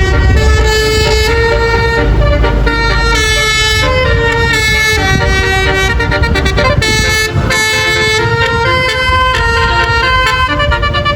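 Telolet basuri bus horn playing a tune of short stepped notes, over the rumble of engine and road.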